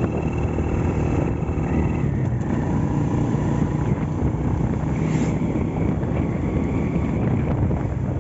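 Restored Honda Astrea Grand's small single-cylinder four-stroke engine running steadily while the motorcycle is ridden at an even pace.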